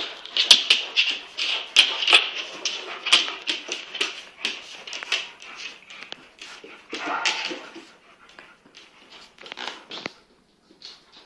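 Two kangal dogs play-fighting: a rapid run of short dog noises and scuffles, busiest in the first six seconds. A last flurry comes around seven seconds, then it dies down to a few scattered sounds after about eight seconds.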